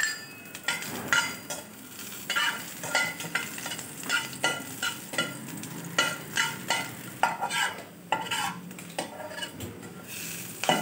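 Sliced garlic and ginger sizzling in hot oil in a frying pan, stirred with a metal spatula that scrapes and taps against the pan again and again.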